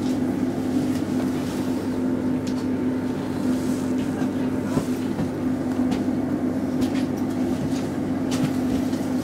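Steady low hum of a Roslagsbanan X10p electric train standing at a platform, heard from inside the carriage, with a few faint clicks.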